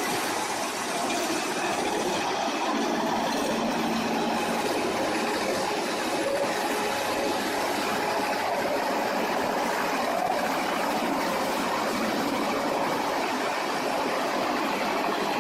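Wood chipper running, a steady noisy machine din with no distinct impacts.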